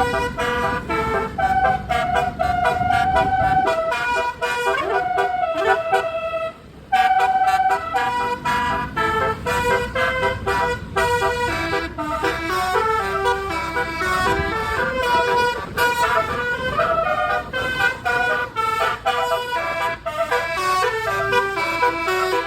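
Indonesian bus 'telolet' multi-tone horn playing a long melody of held and quickly stepping notes, over a low engine sound. The horn breaks off for a moment about six seconds in, then resumes.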